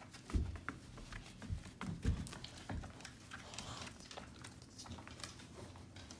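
Great Dane puppy and an adult dog scuffling in play on a rug: patter of paws and claws, with several dull thumps in the first three seconds.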